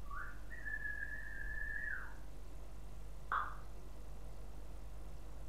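African grey parrot whistling one long note of about two seconds that rises at the start, holds steady and drops at the end, then a single short chirp about a second later.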